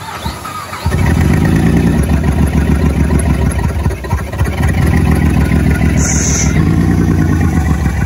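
The 2006 Honda Pilot's 3.5-litre V6, running through a leaking exhaust, jumps to a loud, steady rumble about a second in and holds there. It is running a little shaky, with a misfire.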